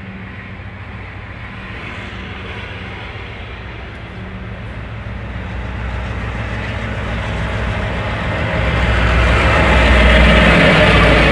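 Taiwan Railway diesel locomotive R153 hauling a freight train approaches, its engine running with a low steady hum that grows louder until it passes about nine to ten seconds in, joined by rising wheel-on-rail noise.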